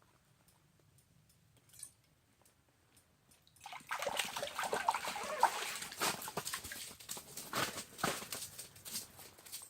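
Water splashing and sloshing, starting about three and a half seconds in and going on irregularly until near the end.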